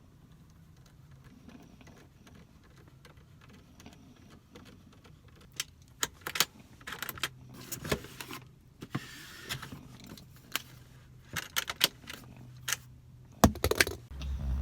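Clicks, knocks and light metal rattles, like small hardware and hand tools being handled, starting about five seconds in after a faint stretch, with a louder knock near the end.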